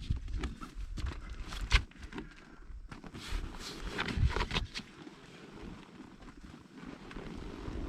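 Canvas swag tent being rolled up by hand: irregular rustling of the heavy fabric with a few dull knocks, the louder ones about two and four seconds in.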